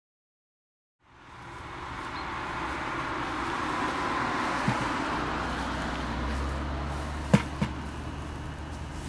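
Dead silence for about a second, then fading in to outdoor background noise with a low rumble of road traffic. There is a light knock about halfway through, and two sharper knocks close together about two seconds from the end.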